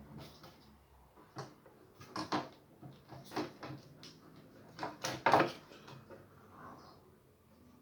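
A few separate knocks and rattles of objects being handled, the loudest a cluster about five seconds in.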